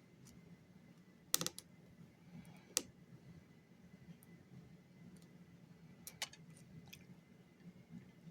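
Faint small clicks of a lock pick and tension wrench working the pins of a pin-tumbler lock: a quick cluster about a second and a half in, a single click near three seconds, and a few more around six to seven seconds.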